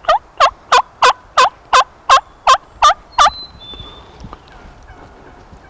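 Wild turkey hen yelping: a run of about ten loud yelps, roughly three a second, each note breaking from high to low. The run stops a little over three seconds in.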